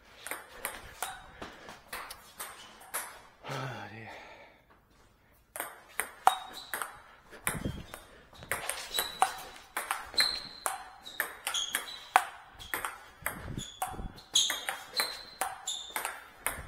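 Table tennis rally: the ball clicks sharply off the paddles and the table in a quick run of hits and bounces. There is a short pause about four to five seconds in, then the rapid clicking resumes.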